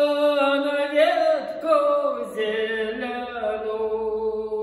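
A man singing a Russian folk song solo, drawing out long held notes that slide between pitches on a single syllable.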